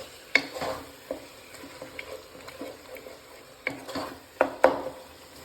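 Spoon stirring and mashing a tomato-onion masala in a pot over a faint sizzle, with scattered sharp knocks of the spoon against the pan, several close together past the middle.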